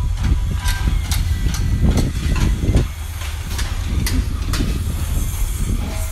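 Wind rumbling on the microphone, with scattered sharp clicks and taps at irregular intervals.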